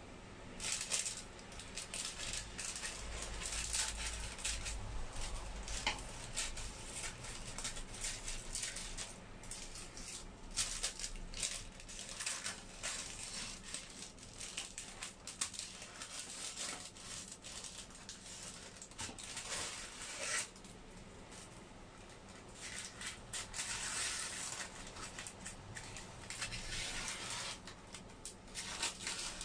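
Scissors snipping through baking paper, trimming it around a tray, with the paper crinkling and rustling at each cut. There is a quieter stretch about two-thirds of the way through.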